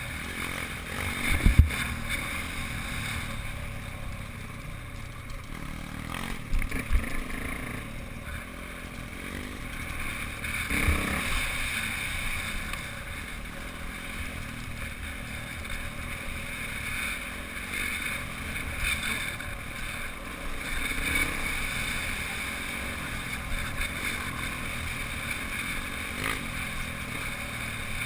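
Dirt bike engine running steadily at trail-riding speed, with wind rushing over the mounted camera's microphone. A couple of sharp knocks, about a second and a half in and again about eleven seconds in.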